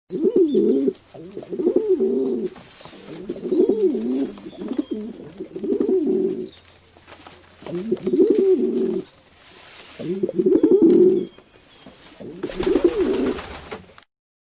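Pigeons cooing: seven low, warbling coos, each about a second long, separated by short pauses, ending abruptly near the end.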